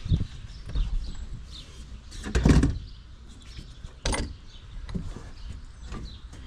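Aluminium-framed solar panel being set down onto galvanized metal strut-channel rails: a clattering clunk about two and a half seconds in, the loudest sound, then a single sharp knock about a second and a half later, with lighter knocks of handling around them.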